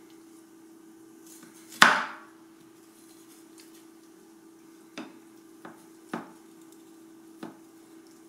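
Cleaver chopping through a clump of frozen leftover rice on a wooden cutting board: one loud chop about two seconds in, then four lighter knocks over the last few seconds. A steady low hum runs underneath.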